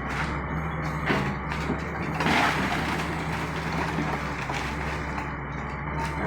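Case 888 excavator's diesel engine running steadily under load, with repeated short crunches and cracks of the house's timber and debris giving way. The loudest crunch comes about two seconds in.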